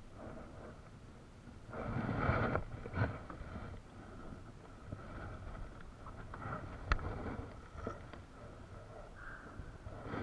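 Handling noise of fishing tackle on a plastic kayak: a loud rustle about two seconds in, scattered small knocks, and one sharp click near seven seconds.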